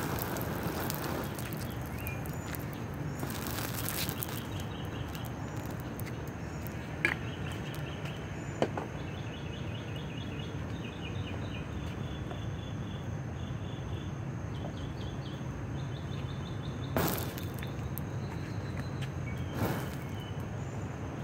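Fuel fire on a burning model tanker car, burning steadily and flaring up with a short whoosh a few times, loudest near the start and near the end, with two sharp pops about seven and nine seconds in. Insects chirp in pulsed rows in the background.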